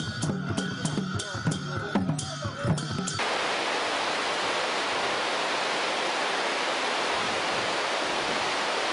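Music with regular drum beats and voices, cut off abruptly about three seconds in by the steady rush of a waterfall.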